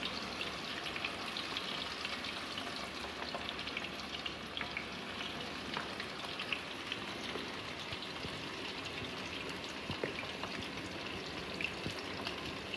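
Masala-coated chicken wings deep-frying in hot oil in a kadai: a steady sizzle with many small crackles and pops.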